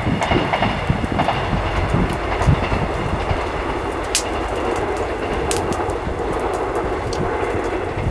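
Wood fire burning with a steady rushing noise and a low rumble, and a few sharp crackling pops about four and five and a half seconds in.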